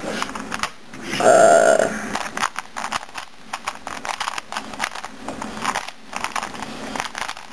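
Plastic 2x2 Rubik's cube being turned by hand: quick, irregular clicking and clacking as its layers snap round through an algorithm. About a second in, a short voiced hum is the loudest sound.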